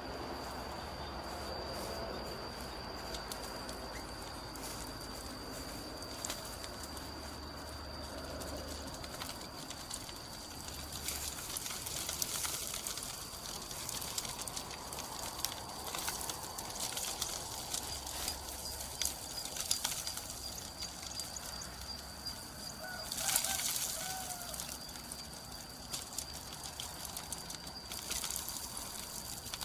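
Dry grass and gravel rustling and crunching as they are handled, in irregular short bursts, with a louder burst about three quarters of the way in. A thin, steady high tone runs underneath.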